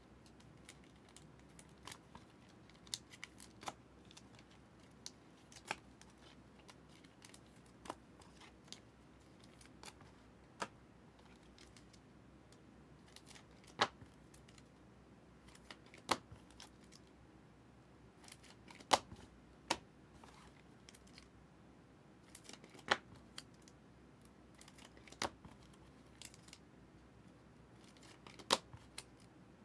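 Packs of 2023 Optic football trading cards being opened and the cards handled: a string of sharp, separate clicks and snaps, one every second or two, some louder than others.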